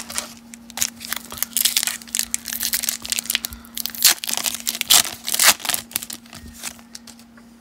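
Foil baseball card pack wrapper being torn open and crinkled by hand, a run of irregular sharp crackles and rips.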